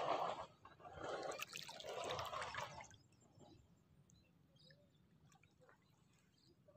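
Water sloshing and splashing in three short bursts over about three seconds, then near silence.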